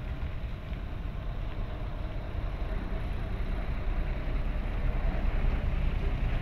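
Diesel engine of a Mitsubishi tanker truck rumbling as it crawls slowly past over a muddy road, getting louder from about four seconds in as it draws level.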